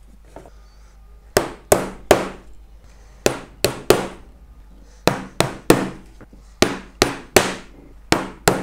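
Hammer tapping small nails through a plastic runner into a wooden beehive super wall: about fifteen sharp strikes in quick groups of two to four, starting a little over a second in.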